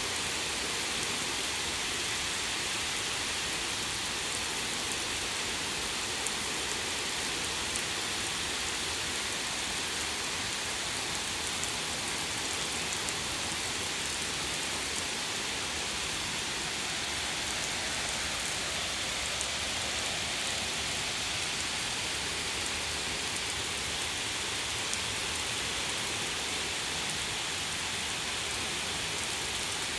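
Heavy rain falling steadily on pavement, grass and trees: a dense, even hiss.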